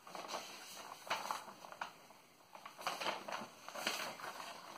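Paper pages rustling as they are handled and turned, in several short, irregular rustles.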